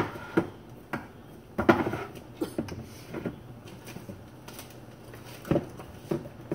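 Irregular knocks and clunks of jars and containers being shifted about in an upper kitchen cupboard while someone rummages through it, with a few sharper knocks, the loudest about a second and a half in.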